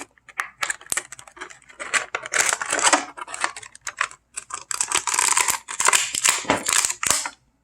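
Rustling and clicking of plastic toy packaging being handled and opened, a dense run of small clicks and crinkles.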